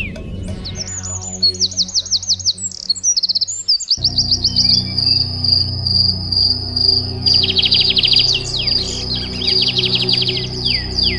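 Ambient background music with held low tones, layered with rapid bird chirps and a steady high insect-like trill.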